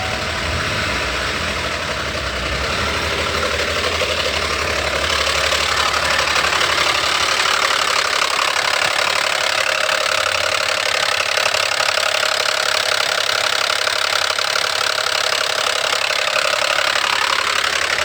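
Vehicle engine running with a knocking noise, the engine noise the owner is complaining about. It grows louder about five seconds in and then runs steadily.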